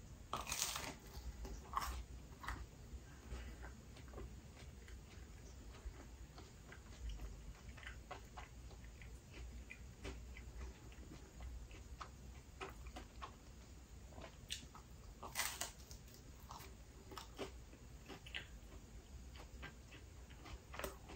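Close-up chewing of a crisp pizza crust: scattered soft crunches and small wet mouth clicks. The brighter crunches come just after the bite about half a second in, and again around fifteen seconds.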